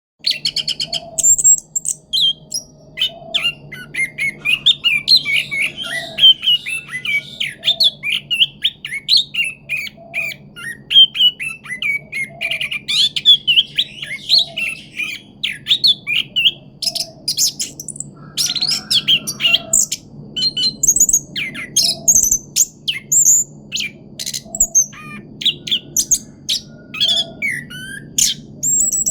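Orange-headed thrush (anis kembang) singing a fast, varied song of chirps and trills strung together almost without pause: the continuous 'rolling' style prized as a pancingan song to set other birds singing.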